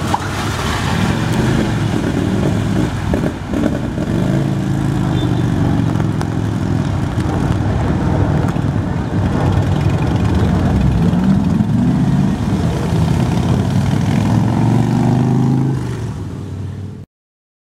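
A Jeep Grand Cherokee SUV and an escorting police motorcycle driving past on a wet street, their engine notes rising and falling as they accelerate, over tyre and traffic noise. The sound cuts off abruptly near the end.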